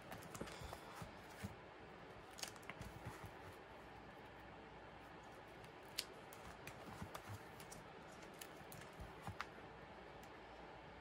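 Faint rustling, tapping and clicking of the clear plastic pocket pages of a ring binder and the sleeved photocards in them as hands handle and turn the pages, with one sharper click about six seconds in.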